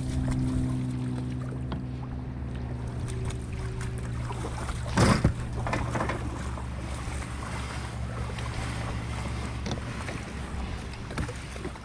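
Kayak moving over water, with wind on the microphone and a steady low hum underneath. A brief louder rush comes about five seconds in.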